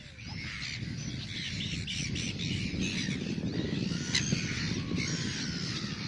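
A colony of gulls calling: many overlapping squawks and cries, over a steady low rumble.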